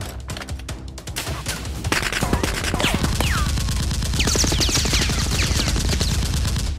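Rapid bursts of gunfire sound effects for Nerf blasters being fired, over background music with a steady bass. Falling whistle-like tones streak through the shots in the middle.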